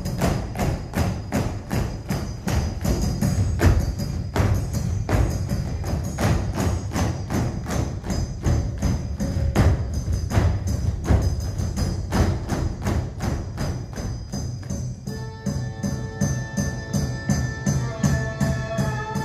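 Hungarian folk dance music with a fast, steady beat of about four strokes a second over a strong bass. About three-quarters of the way through, the beat drops back and sustained held notes come in.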